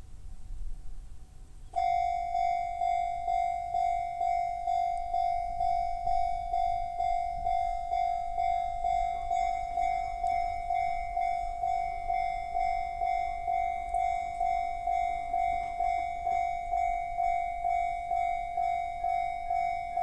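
Japanese railway level-crossing alarm with the Chichibu-type bell tone, switching on suddenly about two seconds in and ringing steadily at about two strikes a second. It is warning of an approaching train as the crossing lights flash and the barriers lower.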